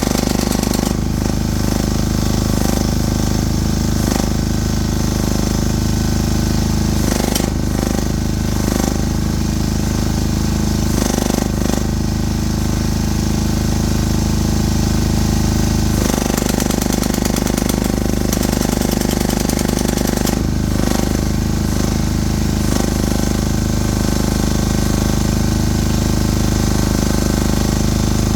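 Excavator-mounted hydraulic breaker hammering in a fast, continuous run of blows, the beat shifting briefly a few times.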